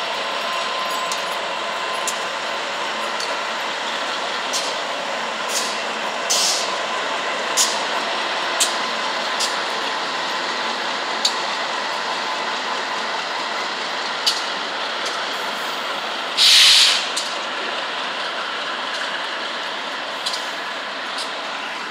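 BNSF freight train with several diesel locomotives passing, a steady train noise with irregular sharp clicks. A loud burst of air hissing about three-quarters of the way through.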